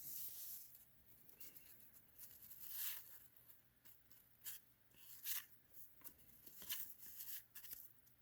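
Faint rustling and sliding of cardboard trading cards being handled and turned over, in short scratchy strokes.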